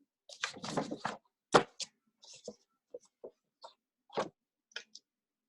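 Irregular short taps, knocks and scratches of drawing and handling things close to the microphone, about a dozen in five seconds, each cut off sharply.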